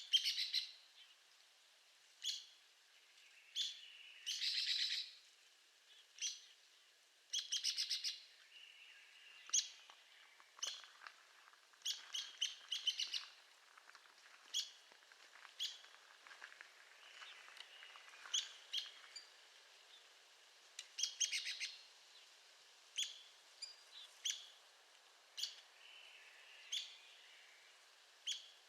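Arizona woodpecker calling: sharp single call notes every second or two, broken by several short, rapid rattling series of notes.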